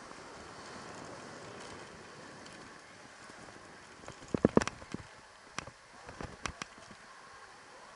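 Electric dirt bike ridden over a packed-dirt track, heard from a rider-mounted camera: a steady hiss of wind and tyres without engine noise. About halfway through comes a cluster of sharp knocks and rattles, then a few more a second or two later, as the bike goes over bumps.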